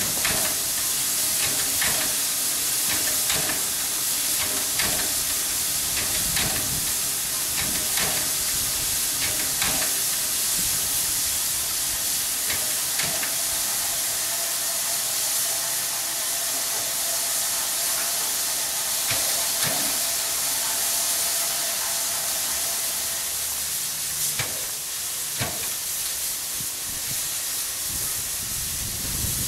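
Steam hissing steadily from standing steam locomotives in steam, with occasional faint clicks.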